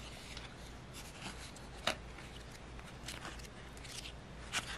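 Faint handling of a small card binder: its clear plastic sleeve pages rustling as they are opened and turned, with a couple of sharp ticks, one about two seconds in and one near the end.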